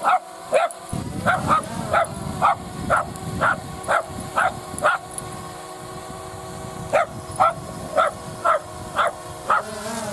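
A small dog barking repeatedly up at a hovering quadcopter drone, about two barks a second, with a short pause midway. The drone's rotors whir steadily underneath.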